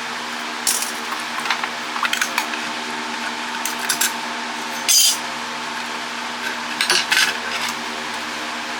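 Small metal parts and tools clinking and clicking on a workbench as a Wi-Fi router is taken apart, a dozen or so scattered clinks with the sharpest about five seconds in, over a steady hum.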